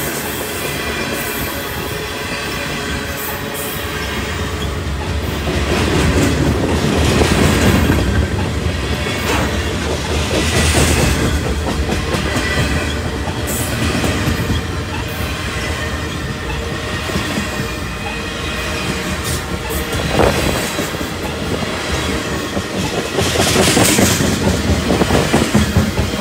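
Freight train of tank cars rolling past close by: steady rumble and clatter of steel wheels on the rails, with scattered clacks over rail joints, rising and falling in loudness as the cars go by.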